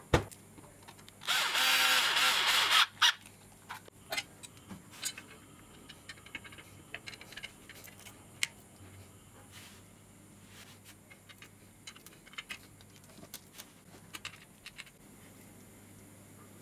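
A handheld power tool runs for about a second and a half shortly after the start. Scattered light clicks and taps of metal parts follow as the circular saw is put back together.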